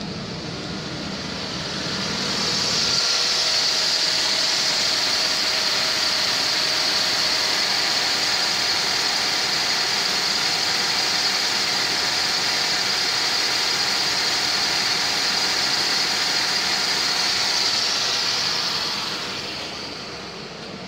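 Mercedes-Benz W220 S320's 3.2-litre M112 V6 engine idling steadily, heard up close at the open engine bay, with a steady high hiss over the running. It grows louder about two seconds in and fades again near the end.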